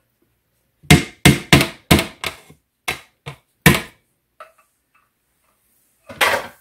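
A metal measuring cup and a spatula knocking against the rim of a mixing bowl, about nine quick knocks, to shake out the last of the thick Greek yogurt. One more knock comes near the end.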